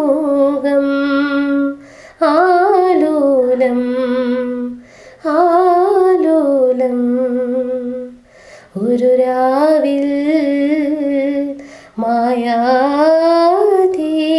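A woman's voice humming a slow, wordless melody in the background song: about five long, wavering phrases with short breaths between them.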